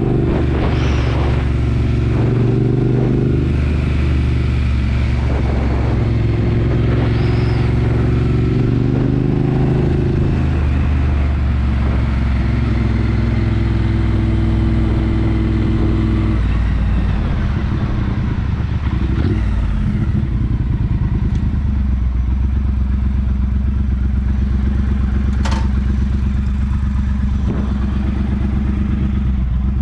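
2017 Triumph Bonneville Bobber's 1200 cc parallel-twin engine through a British Customs Turn Out aftermarket exhaust, riding along a winding road with its note stepping up and down with throttle and gear changes. About twenty seconds in it slows and settles to a steady idle, with a single sharp click a few seconds later.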